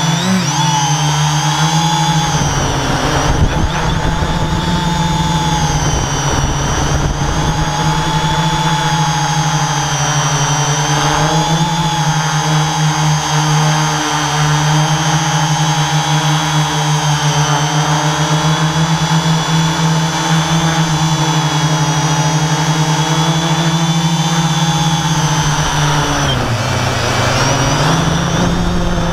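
Electric motors and propellers of a camera drone droning steadily in flight, heard close from the onboard camera. The pitch dips about 26 seconds in, then climbs again near the end.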